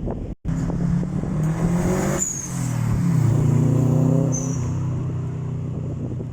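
A car's engine accelerating hard away, revving up, with a break in the note about two seconds in like a gear change, then climbing again and easing off into a steady drone near the end. Two brief high chirps sound over it.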